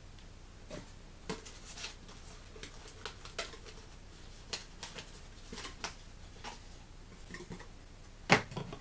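Cardboard toy box and its card insert being handled: scattered light clicks and rustles, with a louder knock near the end.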